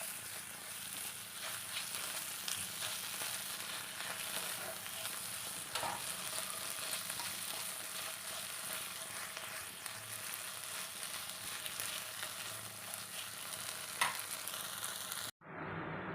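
Tofu and vegetables sizzling in butter in a pan, with a few sharp utensil clicks against the pan. About fifteen seconds in, the sizzle cuts off suddenly and a duller steady hiss takes over.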